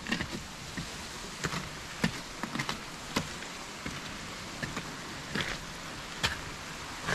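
Footsteps on snow-covered wooden stairs and decking: irregular crunching steps, roughly one every half second, with a short pause in the middle, over a steady background hiss.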